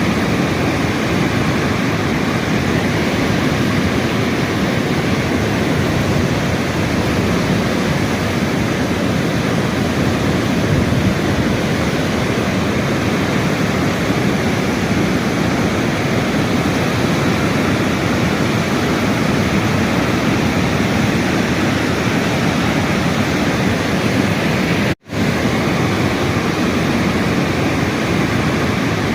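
Steady, loud rush of flowing water, an even dense noise without pattern, cut off for a split second near the end before it resumes.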